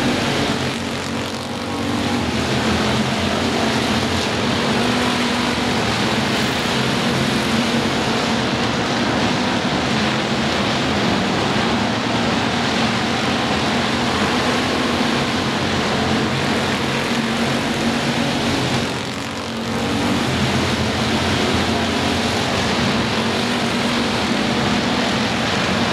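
A pack of dirt-track stock cars racing, many engines running hard together in one steady blare. The sound dips briefly twice, near the start and about three-quarters of the way through.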